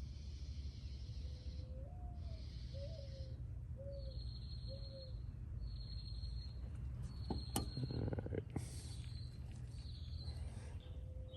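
Outdoor insects trilling in repeated bursts of a second or so, with a bird giving a short series of low hooting notes twice. About seven to eight seconds in come a few sharp clicks and a rustle, the loudest part.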